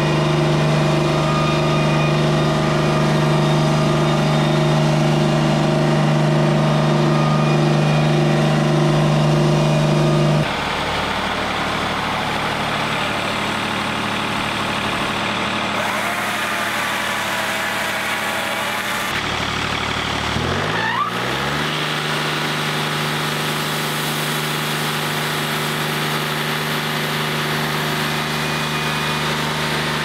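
Wood-Mizer LT40 Wide hydraulic sawmill running under load, its engine drone loud and even as the band blade cuts the log. About ten seconds in it drops to a quieter engine hum. A chainsaw then revs in and out, and a falling whine around twenty seconds in gives way to the mill engine running steadily.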